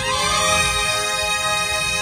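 Marching band brass section, trumpets and other horns, playing held chords together, moving to a new chord about half a second in.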